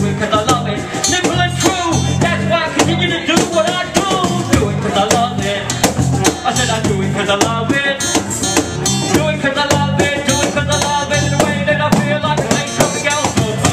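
Live band performance: a male voice rapping into a microphone over a strummed acoustic guitar, electric bass and percussion, with a bass line that repeats in a steady groove.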